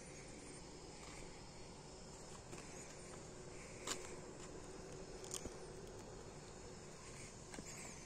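Faint outdoor night ambience: a steady low hiss with faint, scattered chirping, and two sharp clicks about four and five and a half seconds in.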